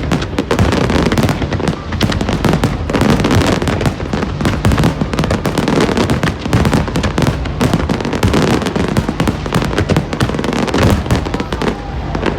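Fireworks display: a dense, continuous barrage of bangs and crackles, many bursts every second.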